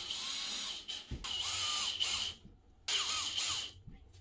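Worx cordless drill running in three short bursts, driving a self-drilling screw through the air-conditioner wall bracket.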